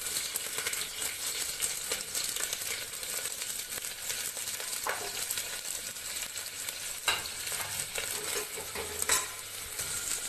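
Finely chopped onion sizzling and frying in hot oil in a pressure cooker, with a few light knocks in the second half.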